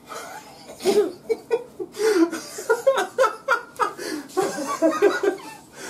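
Hearty laughter: a fast run of short laughing bursts, several a second, starting about a second in and breaking off just before the end.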